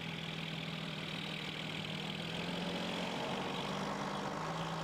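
Coach bus engine running at low speed with a steady hum as the bus drives slowly past and turns.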